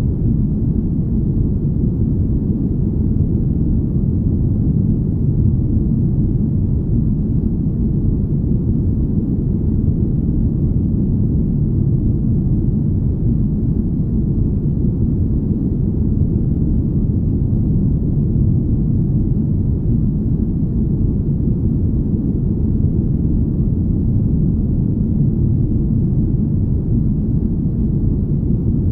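Steady, deep, smooth rumble: a spaceship-cabin ambience of low noise with almost nothing above the low end. It holds even throughout with no changes or events.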